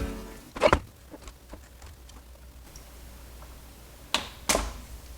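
Tools and parts handled on an electronics workbench: a sharp knock about two-thirds of a second in, then two more sharp clicks a little after four seconds, with faint small ticks and rustles between.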